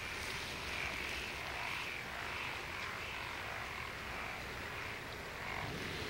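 Frogs croaking in a steady chorus.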